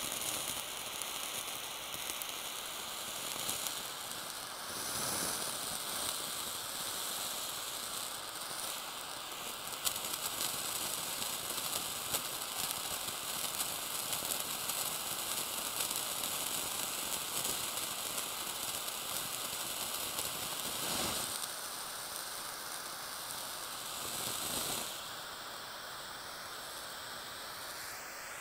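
Small handheld blowtorch flame hissing steadily against a wedge of blue cheese, with the cheese sizzling and crackling as it melts and oozes.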